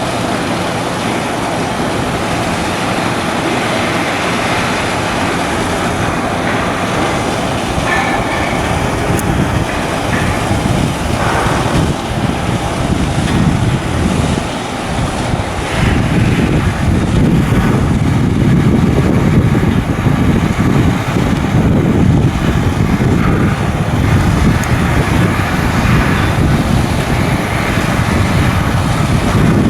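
Heavy machinery running with a steady loud rumble and low hum, growing somewhat louder about halfway through.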